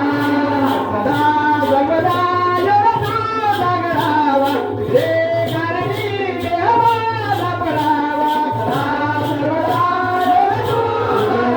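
Marathi Shakti-Tura folk singing, a voice with chorus over a steady percussion beat.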